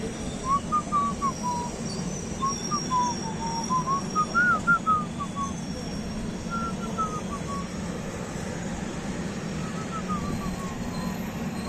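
A whistled tune of short notes gliding up and down, loudest in the first few seconds and trailing off, over the steady rumble of a moving train.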